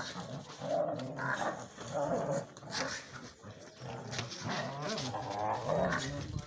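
Two guard dogs, one a German Shepherd, growling in repeated rough bouts as they bite and tug at a decoy's padded bite sleeve and bite suit in attack training.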